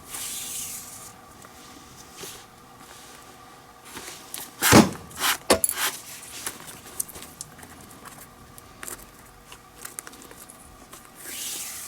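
Leather lace being drawn through a baseball glove's lace holes, a rasping swish at the start and again near the end. A cluster of sharp knocks and clicks about halfway through is the loudest part.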